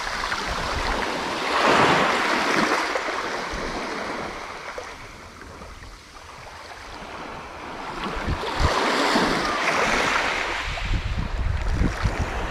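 Sea waves washing in on the shore, rising and falling twice: once about two seconds in and again about nine seconds in. Wind rumbles on the microphone near the end.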